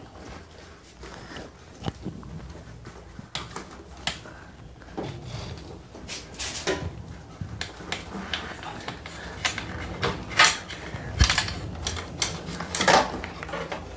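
Irregular clicks, rattles and scrapes of the old clutch cable being worked out of a Bajaj Pulsar 150's handlebar clutch lever and cable housing, with a few sharper knocks in the last few seconds.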